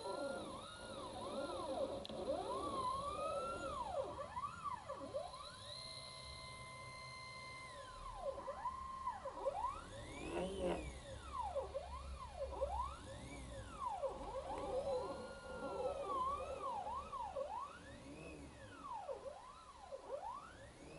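Unmounted stepper motors driven by a GRBL shield on an Arduino Uno, whining in pitch glides that rise and fall as they speed up and slow down, often several at once, with steady tones where they hold speed.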